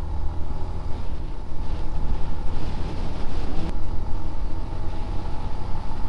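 Motorcycle engine running steadily while riding at cruising speed, a deep rumble with a faint steady whine, and wind rushing over the microphone.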